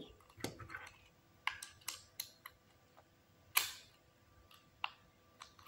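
Plastic Lego Technic parts and battery box clicking and knocking as they are handled and fitted together: a few separate sharp clicks, the loudest about three and a half seconds in.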